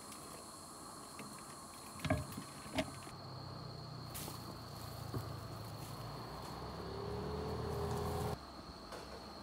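A low engine-like hum that grows louder, its pitch rising near the end before it cuts off abruptly, over a thin steady high-pitched insect-like drone. Two sharp knocks come about two seconds in.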